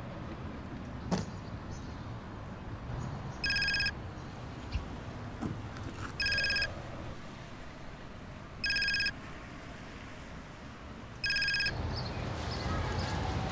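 A telephone ringing: four short, high electronic rings about two and a half seconds apart, over a low steady background hum.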